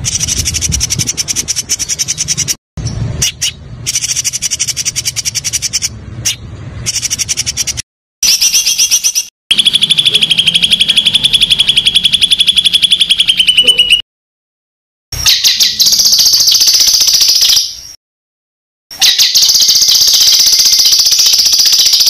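Songbird song made of rapid, harsh, buzzy trills. It comes in several bursts a few seconds long, each cut off sharply with a short silence before the next. The longest burst, in the middle, is lower-pitched.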